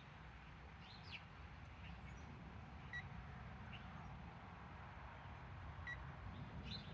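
Two short electronic beeps about three seconds apart from a digital torque meter being restarted, over a low steady background with faint bird chirps.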